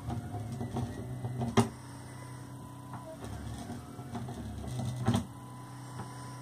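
Small line-following robot's DC gear motors whirring in uneven, stop-start spurts as it steers along the line. Two sharp clicks stand out, about a second and a half in and again near five seconds.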